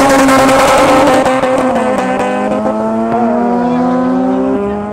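Two Mazda RX-7 drag cars with rotary engines accelerating hard away from the start line. Their engine note climbs through each gear and drops at the shifts, about two seconds in and again near the end. It gets a little quieter after the first second as they pull away.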